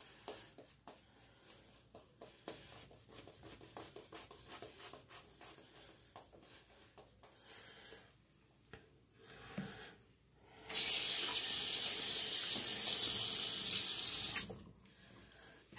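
Soft, irregular scratching of a Simpson Trafalgar T3 synthetic shaving brush working lather on a stubbled face. About eleven seconds in, a sink tap runs full for nearly four seconds, then shuts off.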